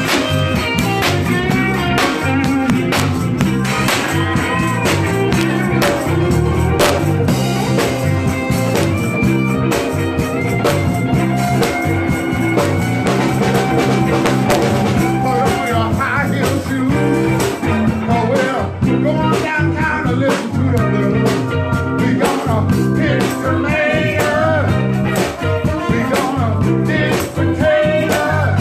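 A band playing a blues-rock number: electric guitar over bass and a drum kit keeping a steady beat, with a wavering lead line on top.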